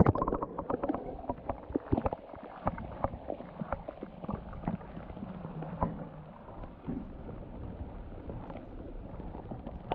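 Kayak on the water: water splashing and lapping, with frequent short, light knocks and clicks scattered through.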